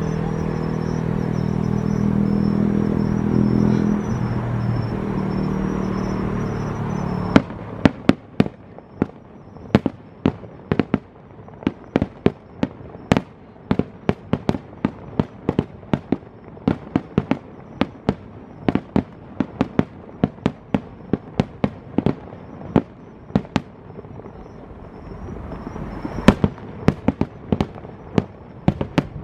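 A steady droning hum for about the first seven seconds. Then fireworks cut in abruptly: a long run of sharp bangs and crackles, several a second, with a louder cluster near the end.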